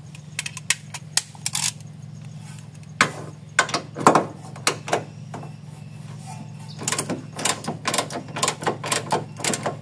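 Hand ratchet wrench on a 19 mm control-arm bolt being loosened by hand: scattered metallic clicks and clinks, then a quick, even run of ratchet clicks in the last few seconds. A steady low hum sits underneath.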